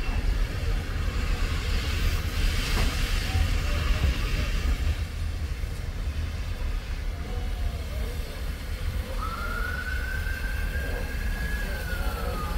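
Steam locomotive whistle sounding once for about three seconds near the end: a single clear tone that rises slightly and then sags in pitch as it closes. Before it there is a steady low rumble and a brief hiss a couple of seconds in.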